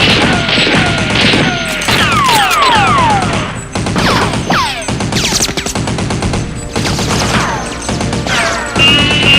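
Rapid gunfire sound effects, shots tightly packed with many falling whistles sliding down in pitch, over background music.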